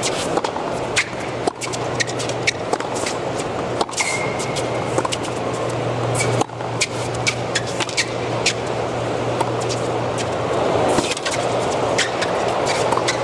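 Tennis rally on a hard court: sharp racket strikes on the ball over the steady murmur of a large stadium crowd, with a low steady hum beneath. A short squeak comes about four seconds in, and the crowd noise swells near the end.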